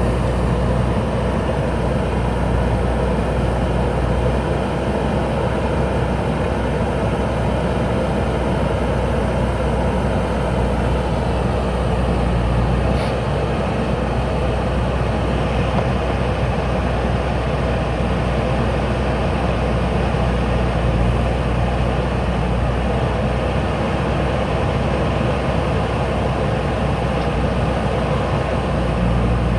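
JCB backhoe loader's diesel engine running with a steady, even drone.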